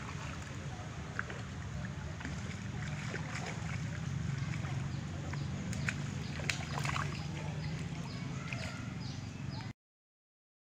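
Light splashing and sloshing at a pond's surface, where a hooked pacu (ikan bawal) is thrashing, over a steady low hum, with scattered sharp clicks. Cuts off abruptly near the end.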